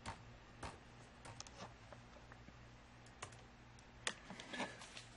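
Faint, irregular clicks of a computer keyboard being typed on, a dozen or so keystrokes with uneven gaps.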